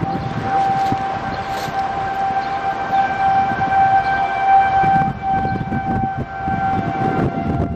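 Outdoor tornado warning siren sounding a steady tone that swells louder around the middle and eases off again, with a low rumble underneath.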